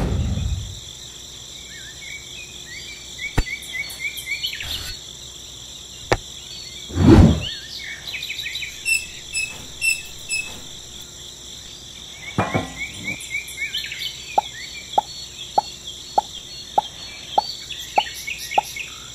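Steady chirring of insects with bird chirps, broken by light knocks and taps from small parts being handled, the loudest a dull thud about seven seconds in. In the last five seconds come about nine even clicks, roughly one every 0.6 s.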